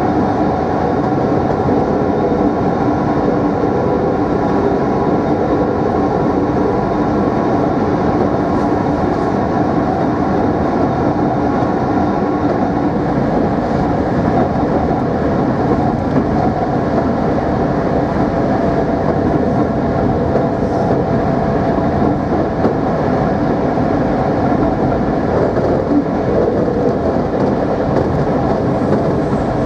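Traction motors of a Mat'64 (Plan V) electric multiple unit running steadily at speed: a constant hum with a few held tones over the rumble of wheels on rail.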